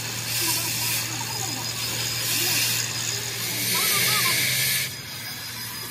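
Electric arc welding on steel, the arc sizzling in three bursts of a few tenths of a second to over a second each, over a steady low hum.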